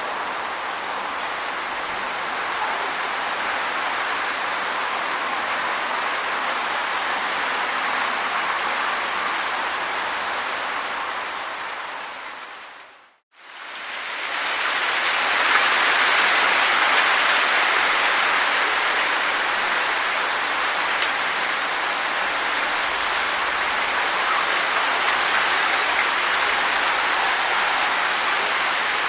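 Wind rustling through tree leaves: a steady, dense rustle that fades away to silence near the middle, swells straight back in, and stays a little louder for a while after.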